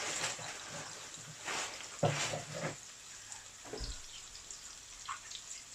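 Burgers sizzling faintly in a frying pan, with a few short knocks and clatters of kitchen handling; the loudest comes about two seconds in.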